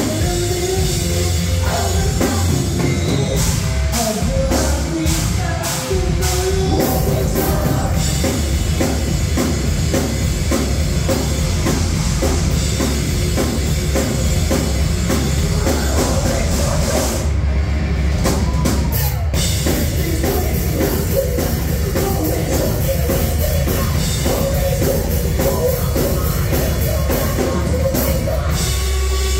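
A live heavy rock band playing loud through a club PA: distorted electric guitar, electric bass and a pounding drum kit with cymbals, with a singer's vocals over them. The cymbals drop out for a moment about two-thirds of the way through.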